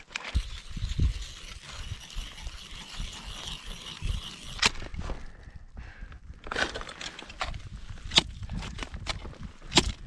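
Ice axe and crampons striking steep ice as a climber moves up: several sharp hits, most of them in the second half, over a low rumble.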